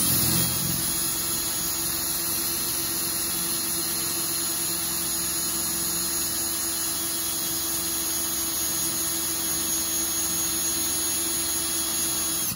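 Handheld power drill running steadily under downward pressure as its 1/4-inch Forstner bit bores through a thin metal canning jar lid into a wood block beneath. It starts abruptly and runs for about twelve seconds, then cuts off suddenly.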